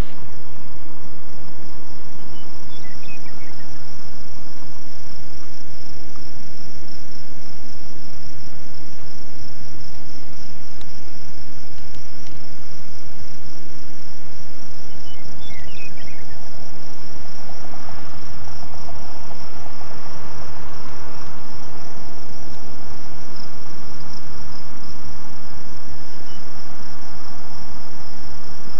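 Steady, high-pitched insect chorus over grassland, with two short descending bird chirps, one early and one about halfway through, over a low steady hum.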